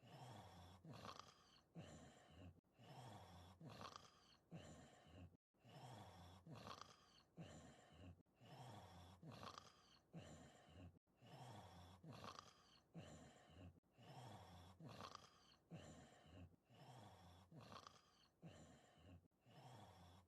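Faint cartoon snoring of a giant wolf character in an English-dubbed anime: rough, throaty snore breaths with a whistling note that rises and falls. The same snore cycle repeats about every three seconds.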